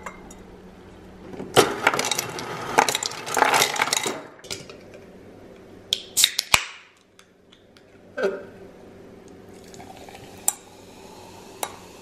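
Glassware clinking and clattering: a stemless glass is taken from a cabinet, then a dense rattle of ice into the glass for a couple of seconds. Later come a few sharp clicks and single taps as an aluminium can of sparkling water is handled against the glass.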